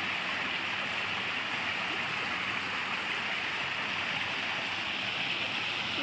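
Water from a stepped rock waterfall falling in several thin streams into a garden pond: a steady splashing and trickling.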